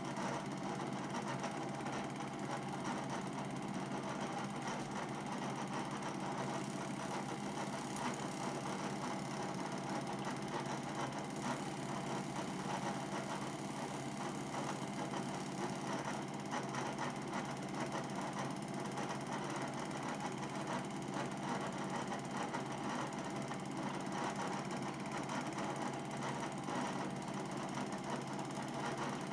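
Home-movie film projector running: a steady mechanical whirr with a fast, fine clatter from the film transport.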